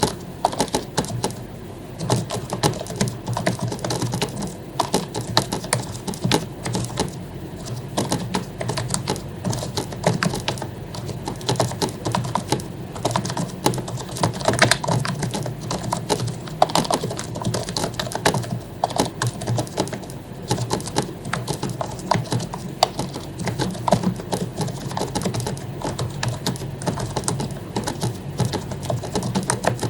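Fast, continuous typing on an HP membrane keyboard whose keycaps are lubed, a dense irregular patter of key presses with a brief pause about a second in.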